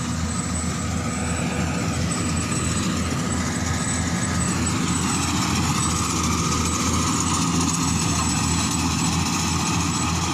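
An engine running steadily, with an even, fast low pulse throughout.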